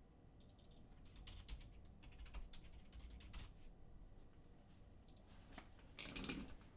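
Faint, irregular clicks and taps, with a louder rustle about six seconds in.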